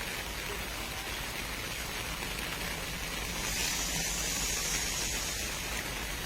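Steady heavy rain falling, a continuous hiss that grows a little louder and brighter from about three and a half seconds in for a couple of seconds.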